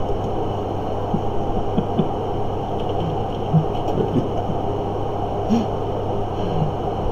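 Steady low hum of room background noise, with a few faint clicks scattered through.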